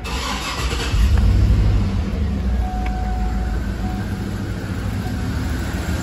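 2012 Cadillac Escalade's 6.2L V8 starting: it catches about a second in with a brief rev, then settles into a steady idle. It is running with one cylinder's coil and injector unplugged for a running compression test, and cylinder 7 is misfiring because its lifters are stuck off.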